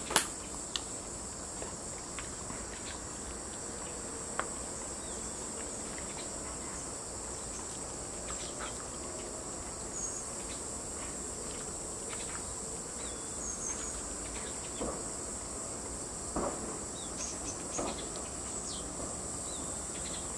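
Steady, high-pitched insect chorus, with a few scattered soft clicks and taps over it.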